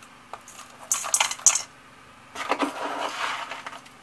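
A spoon scoops a gritty compost of horticultural grit, sharp sand and small pebbles and tips it into a small plant pot. There are short scraping, rattling bursts about a second in, then a longer gritty pour.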